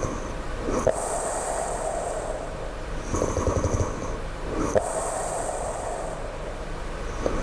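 A sleeping person snoring low and steadily. Each breath gives a low rattling snore, then a short click and a longer breathy stretch, repeating about every four seconds, twice here.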